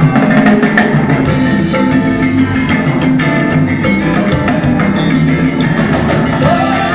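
Latin-style dance music playing loudly, with drums, percussion and guitar.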